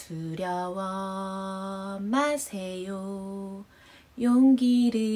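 A woman singing a slow children's hymn alone, without accompaniment, in long held notes pitched low. There is a short breath pause a little before the last, louder note.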